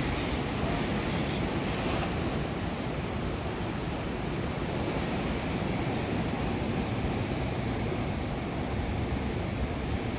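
Ocean surf washing onto a beach in a steady wash of noise, with wind rumbling on the microphone.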